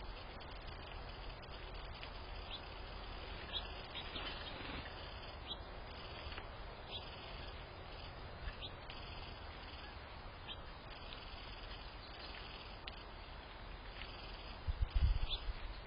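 Small wild birds chirping in short, scattered calls over a steady outdoor background hiss. A brief low rumble comes near the end.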